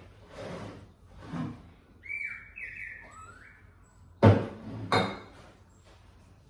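Kitchen cleaning noises: a couple of soft swishes, then a few short high chirps or squeaks that slide down in pitch, then two sharp knocks about half a second apart, the first the loudest.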